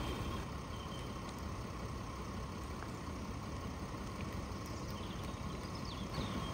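Land Rover Defender's engine idling steadily.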